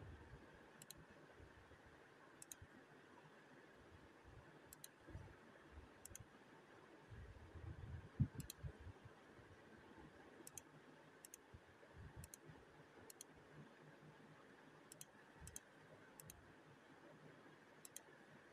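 Near silence: faint room tone with soft, sharp clicks at uneven intervals, about one a second, and a few soft low bumps, the loudest about eight seconds in.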